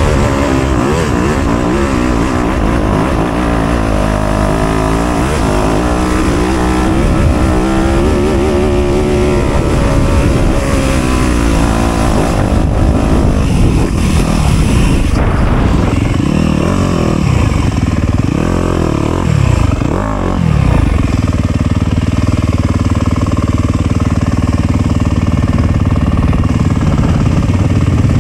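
Dirt bike engine revving up and down as the bike is ridden along a trail, its pitch rising and falling with the throttle. It settles to a steadier, lower note about two-thirds of the way through.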